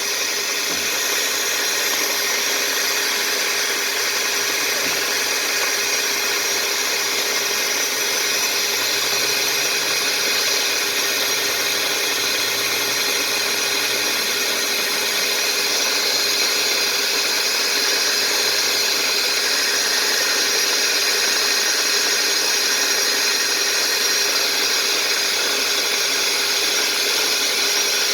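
Drill spinning a chain knocker (Clog Dawg) inside a drain pipe, running steadily as its chains ream out tree roots and grind them into sawdust.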